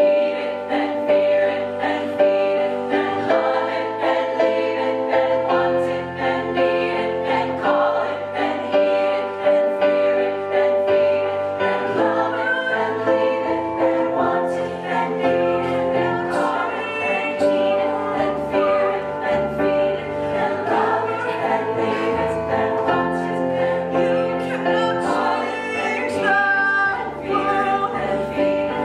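A women's choir singing with a lead soloist on a microphone, over an accompaniment with a bass line and a steady beat.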